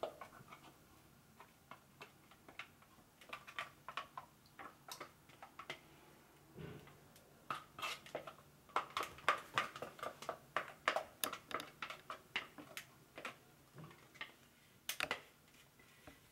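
Spatula scraping and knocking against a plastic food-processor bowl while scooping thick avocado purée out of it: a faint, irregular run of light clicks and scrapes that gets busier about halfway through.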